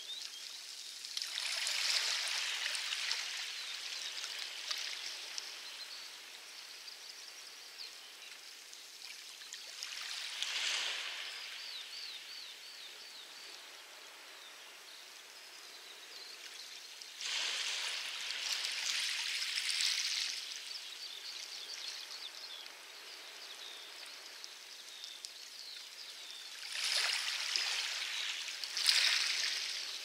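Small waves washing onto a pebble beach: four hissing surges of water over stones, several seconds apart, the last the loudest. Faint distant birds chirp in the background.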